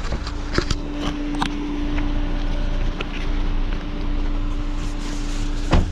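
Car cabin noise as the car moves slowly to park: steady low engine and road rumble with a held hum, scattered light clicks, and a sharp knock just before the end.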